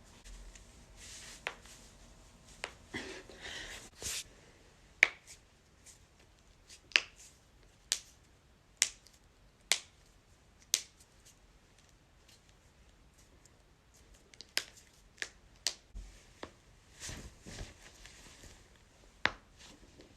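Joints cracking: about a dozen sharp single pops, mostly about a second apart, with a pause of a few seconds in the middle. Soft rustling of handling comes near the start and again near the end.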